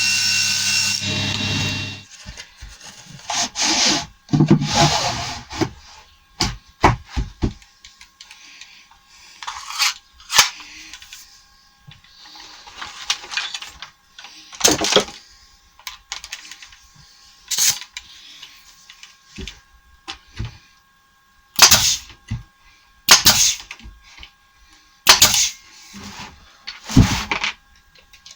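Power saw cutting wood, its motor whine and cutting noise stopping about two seconds in. After that come irregular sharp knocks, clunks and short scrapes of boards and tools being handled.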